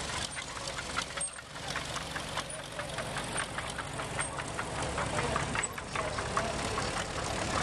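Small vintage tractor engines running at low speed as tractors drive slowly past, a low rumble with rapid sharp ticking beats from the firing.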